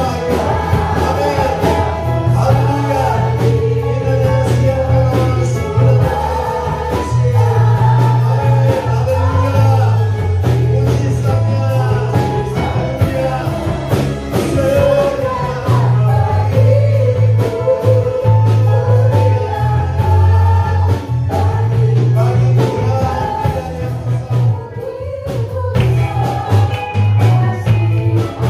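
Live worship band playing an upbeat praise song: several singers together in Indonesian over electric guitars, electric bass, keyboard and drum kit, with a heavy steady bass line.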